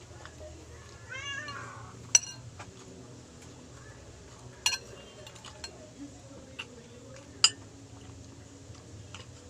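A domestic cat meows once, about a second in, a short wavering call. Sharp clinks of a spoon on a plate follow three times during the meal.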